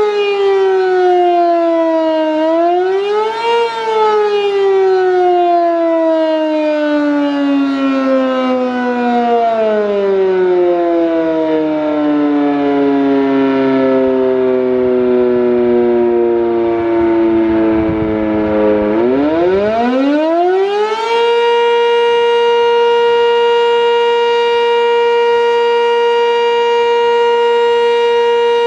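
Sentry 10V outdoor warning siren. Its pitch dips and rises once, the last cycle of the wailing Attack signal, then sinks slowly for about fifteen seconds as the rotor winds down. About nineteen seconds in it spins back up within two seconds to a steady high tone, the Alert signal.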